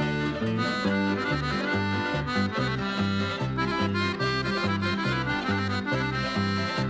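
Lively traditional march music led by an accordion, over a bass line that steps back and forth between two notes in a steady, even beat.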